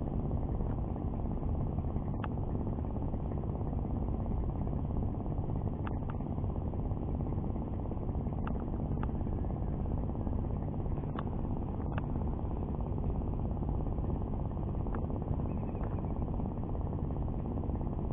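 Steady low rumble with a constant hum, typical of a distant idling engine, and a few faint clicks scattered through it.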